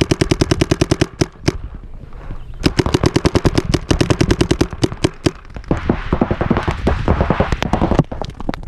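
Paintball marker firing rapid strings at about ten shots a second, with a break of about a second and a half early on. In the last few seconds a denser, overlapping rattle of incoming paintballs hitting the bunker: the 'paint shower' from the opposing team.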